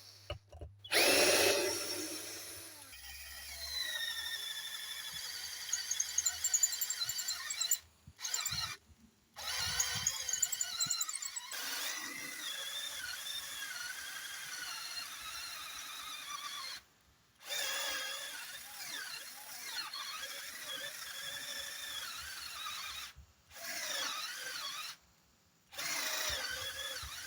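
12 V cordless drill running in several bursts that start and stop, with short pauses between them. Its motor whine rises and falls in pitch as the speed changes.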